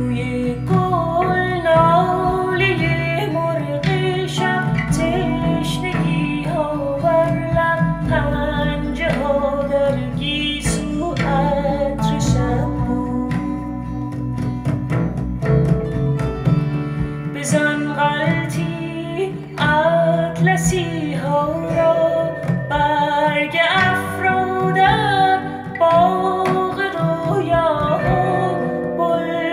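A song played back through Arcus Anniversary 300 floor-standing hi-fi speakers: singing over guitar and strings, heard in the room.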